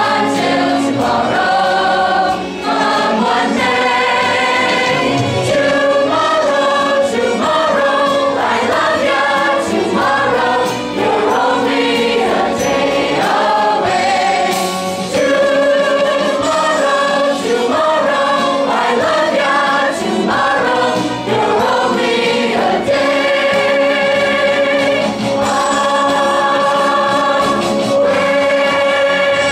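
Musical-theatre ensemble of children and adults singing together in chorus, moving through quick changing notes and then holding long notes over the last few seconds.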